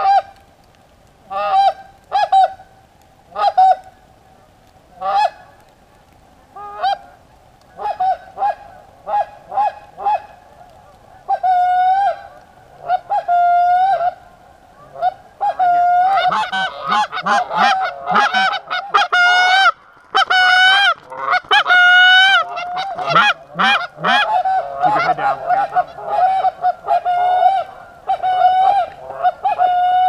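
Canada geese honking: single honks every second or so, then from about halfway a chorus of many overlapping honks.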